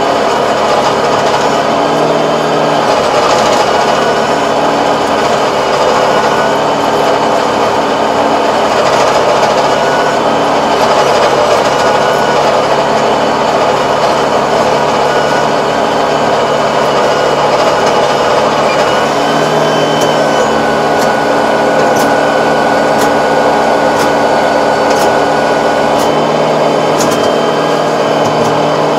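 Tractor engine running steadily under load while a Kobashi rotary tiller churns the soil behind it, a dense mechanical din over a constant engine hum. A few sharp clicks cut through in the second half.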